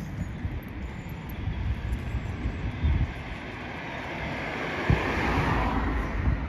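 Wind buffeting a phone's microphone in irregular low rumbles, under a broad rushing noise that swells to a peak about five seconds in and then fades.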